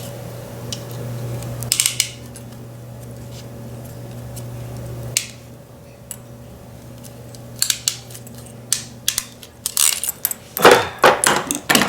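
Ratcheting crimping tool and metal terminals being handled: scattered sharp metallic clicks and clinks, growing into a quick run of clicks near the end as a blue insulated terminal is crimped onto a wire. A steady low hum stops about five seconds in.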